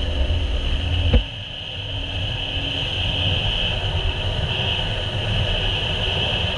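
Sea-Doo GTI jet ski running at speed: steady engine and jet noise with a low rumble and rushing water, and a steady high whine over it. A single sharp thump about a second in.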